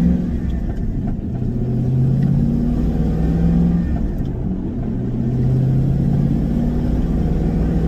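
Camaro SS's LS1 V8 engine and road noise heard from inside the car while driving, a steady low engine drone whose pitch shifts a few times with throttle. The engine is running smoothly, its cylinder 5 misfire cured.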